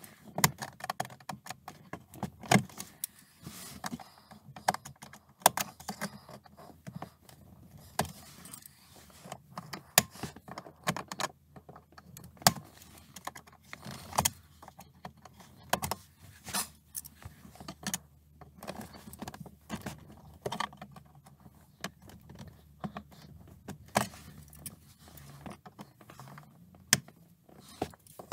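Needle-nose pliers clicking and scraping against the metal hinge pin and springs of a BMW E92 M3 rear armrest as the pin is worked out: irregular sharp metallic clicks and rattles, one to a few a second.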